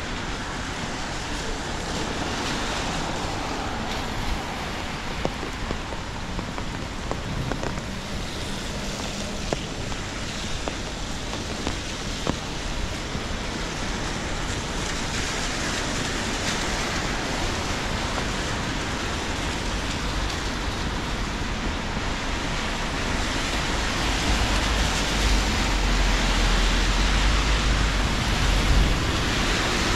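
Steady rain with scattered drip ticks, growing louder over the last third, with a deep low rumble for several seconds near the end.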